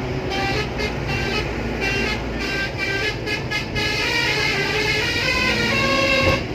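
Musical horn of an Indian truck playing a tune as a run of short notes changing in pitch, over the low rumble of vehicles driving.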